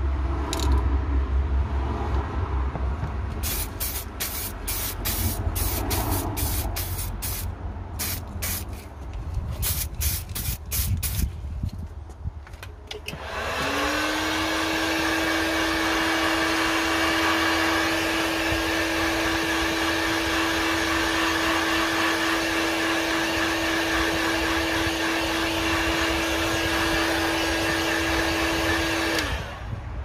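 Electric heat gun switched on about 13 seconds in: its fan motor spins up with a brief rising whine, then runs steadily with a hum and a strong hiss of blown air for about 16 seconds before cutting off. It is blowing warm air over freshly sprayed stove paint to help the coat dry between coats. Before it, a low rumble and a quick run of short sharp noisy ticks.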